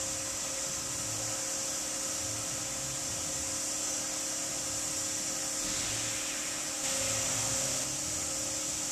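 A steady whirring hiss from a small electric motor, like a blower or vacuum, running without a break. It gets slightly louder for about a second around seven seconds in.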